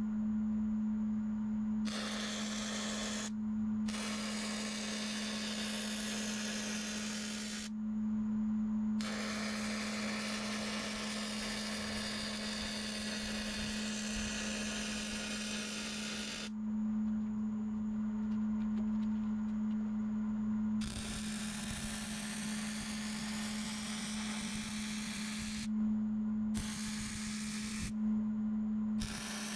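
Metalworking on a steel mower mounting bracket: six stretches of harsh hissing noise, each one to seven seconds long, start and stop abruptly over a steady low hum.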